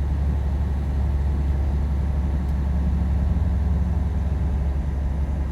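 Semi truck's engine and road noise heard from inside the cab while driving: a steady low drone.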